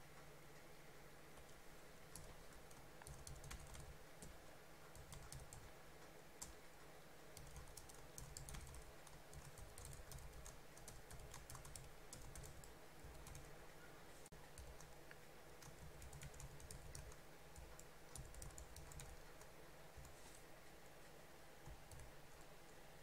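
Faint typing on a computer keyboard: quick runs of key clicks with short pauses between them, over a low steady hum.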